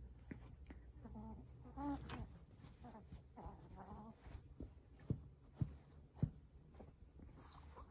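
A Yorkshire terrier makes short whining, grunting sounds as it squirms about in a plush pet bed. Later come three sharp clicks.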